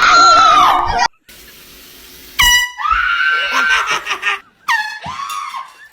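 Music cuts off abruptly about a second in; then an automatic air horn blasts twice, two short loud honks about two seconds apart.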